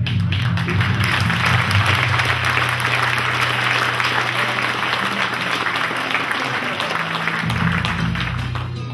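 Audience applauding, with music playing underneath; the clapping dies away near the end.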